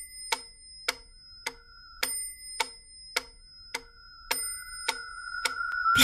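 Clock ticking, a sharp tick a little under twice a second with a faint high ringing over some of the ticks. A steady held tone comes in about a second in and grows louder beneath the ticks toward the end.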